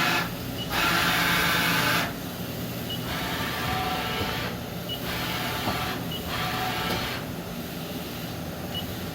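Mori Seiki MV40M vertical machining center's axes moving at rapid traverse, the servo drives and ball screws running with a steady whine in separate moves. One long, louder move ends about two seconds in, then four shorter, quieter ones follow. The run is smooth and even, the sound of ball screws and slides in good condition.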